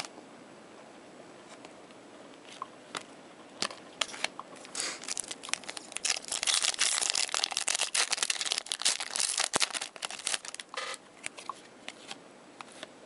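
A hockey card pack's wrapper being torn open and crinkled by hand: a few sharp crackles at first, then dense crinkling for several seconds in the middle, dying down to a few clicks near the end.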